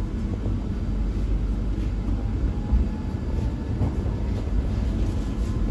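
Pesa EN97 electric multiple unit under way, heard from inside the passenger compartment: a steady low rumble of running gear on the track.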